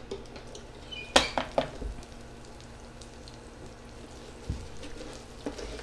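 Buttered sandwich sizzling faintly on the hot grill plate of an electric panini press, with a couple of sharp clicks about a second in and a low thump later.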